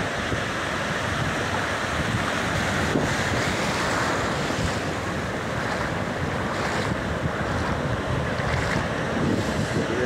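Ocean surf breaking and washing in over shallow water, a steady rush with wind buffeting the microphone.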